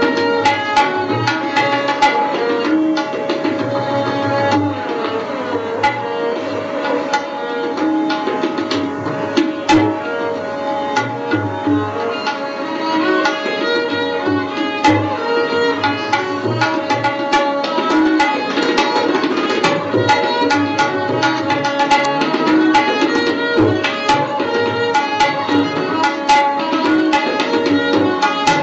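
Background instrumental music: rapid hand-drum strokes over a steady held drone, with plucked melody notes.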